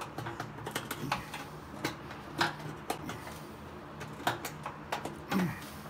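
Irregular small clicks and taps of hands working a fuel line and its clamp onto the check valve fitting of a motorcycle fuel pump assembly.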